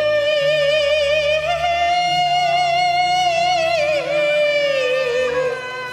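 Cantonese opera singing: one long drawn-out sung note with vibrato that rises a step about a second and a half in and bends down briefly near four seconds, over a steady low instrumental accompaniment.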